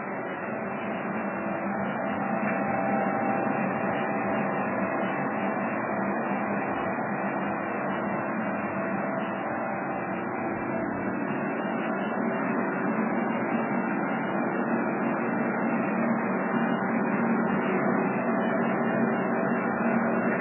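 DOIMAK RI-C CNC internal grinder running: a steady machine hum with several held tones, growing a little louder about two seconds in.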